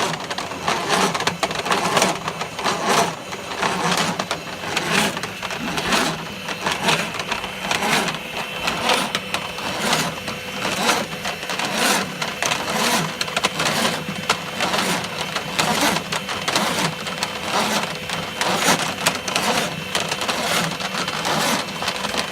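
Drain-cleaning machine running in the sewer line, with a continuous, irregular clattering and rattling and a faint steady whine.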